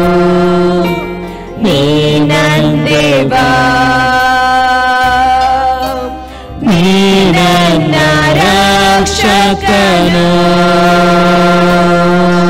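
Slow Kannada Christian worship song: a voice holds long notes and slides between them over sustained music. The music briefly drops back twice, about a second and a half in and again around six seconds.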